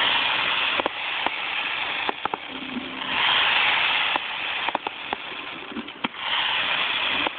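Aerial fireworks shells bursting: a dozen or so sharp, irregular bangs. Three stretches of dense hissing crackle, each about a second long, come near the start, about three seconds in, and about six seconds in.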